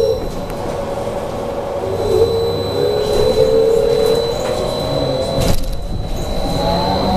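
BKM 43300D trolleybus electric traction drive whining inside the cabin. The pitch falls as it slows, holds low for a few seconds, then climbs again near the end as it picks up speed, over a steady high whistle and road rumble. A short click comes about two-thirds of the way through.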